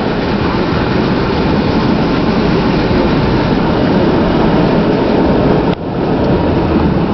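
Strong wind buffeting the truck and microphone: a loud, steady rumble, with a brief dip about three-quarters of the way through.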